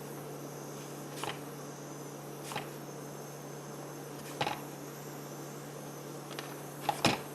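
Scattered light clicks and knocks of small parts and tools being handled on a workbench, the loudest pair near the end, over a steady low hum.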